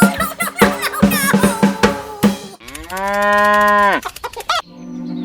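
A clatter of quick knocks and short pitched squeals, then a cow mooing once, a long call of about a second that drops in pitch as it ends. A steady low hum starts near the end.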